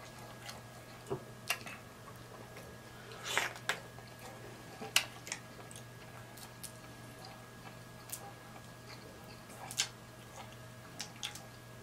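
Close-up eating of boiled shrimp: irregular wet smacks and sharp clicks of chewing and lips, about a dozen, with one longer wet smack about three seconds in. A steady faint hum lies underneath.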